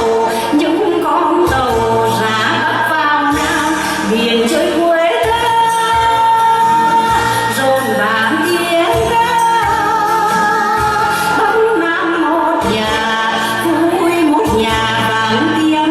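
A song performed with a singer's voice, its long notes wavering with vibrato, over a band accompaniment with a regular bass line.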